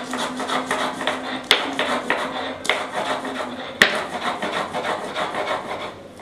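A shil-nora grinding stone and roller crushing green chilies into a paste: quick back-and-forth rubbing and scraping, about three or four strokes a second. Three times the roller knocks sharply against the slab.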